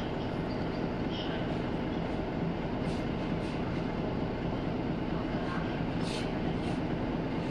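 Duewag BR628 diesel railcar approaching slowly from a distance: a steady low rumble with a faint hum, and a few short high chirps over it.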